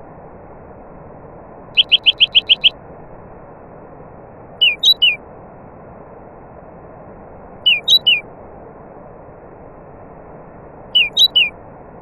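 A songbird chirping: a quick run of about seven high notes, then three short phrases of two or three sliding notes each, evenly spaced a few seconds apart, over a steady rushing background noise.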